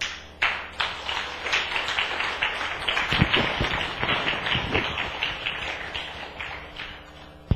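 Congregation applauding, a dense patter of many hands clapping that thins and dies away near the end.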